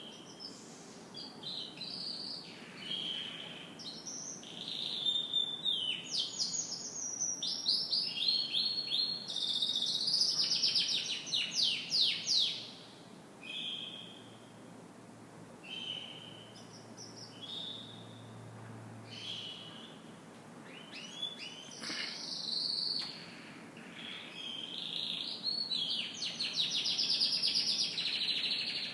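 Domestic canary singing: varied high chirps and fast rolling trills, with a quieter stretch of short, spaced notes in the middle.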